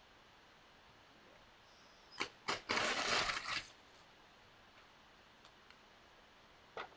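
A sheet of paper being ripped out of a spiral-bound notebook: two quick short rips, then one longer tear lasting about a second.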